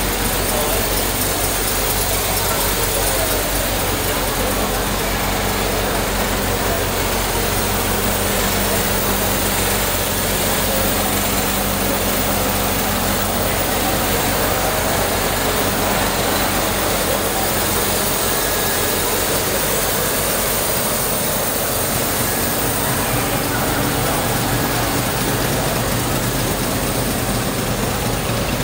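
A car engine idling steadily, over a background murmur of voices.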